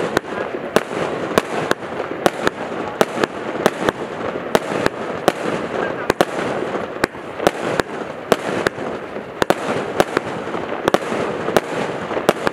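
A 280-shot compound fireworks cake by Brutus Fireworks firing: sharp bangs about two or three a second over a steady dense noise of launches and bursts.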